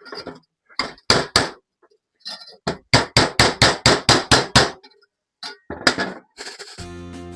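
Hammer blows on a sheet-metal brace, shaping a bend into it. A few spaced strikes come first, then a quick run of about eight at roughly four a second, then two more.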